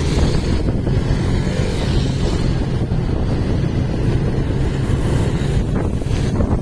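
Wind buffeting the microphone: a steady, loud, low rumble with no break.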